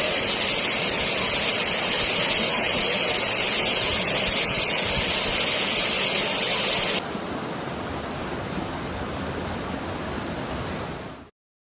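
Waterfall, water falling and rushing in a steady, hissing wash. About seven seconds in it drops to a softer, duller rush, then cuts off abruptly near the end.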